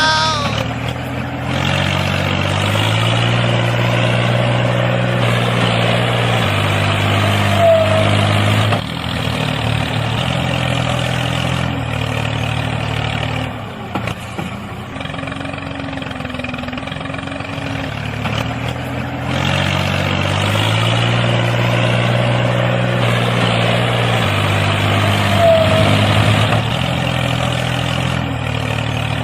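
An engine sound like a truck's, running with its pitch shifting up and down in steps. The same passage repeats about every 18 seconds, as a looped recording does.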